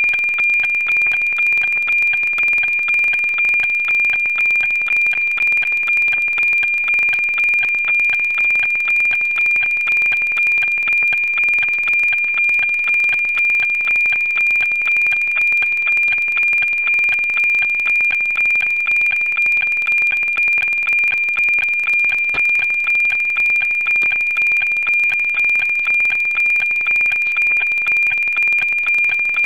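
NOAA-19 weather satellite's APT image signal, FM-demodulated from 137.1 MHz: a steady 2400 Hz tone pulsing in an even tick-tock beat, the line-sync rhythm of the image being sent two lines a second.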